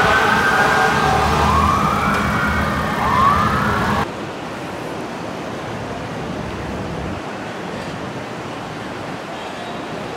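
Fire truck sirens wailing in several rising sweeps over street traffic noise. About four seconds in they cut off abruptly, replaced by a steady wash of wind and choppy river water.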